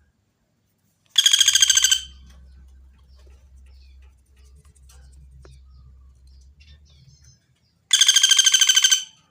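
Woodpecker (pelatuk bawang) giving two loud, fast rattling calls, each about a second long and about six seconds apart, with a faint low hum between them.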